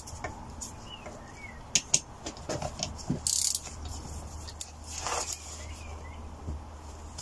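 3/8-inch ratchet working the crankcase bolts loose half a turn at a time: scattered sharp metal clicks and knocks, with a short burst of rapid ratchet clicking about three seconds in.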